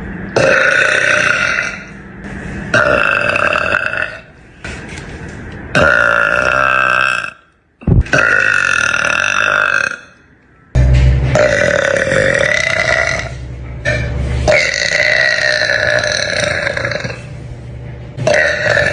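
A young woman's deep, long burps, about seven in a row, each lasting one to three seconds and cut one after another. There is a sharp click near the middle.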